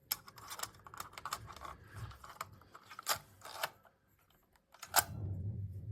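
Irregular clicks and taps of hands handling a Sony DCR-TRV239 camcorder and working its buttons and controls, with one sharper click about five seconds in.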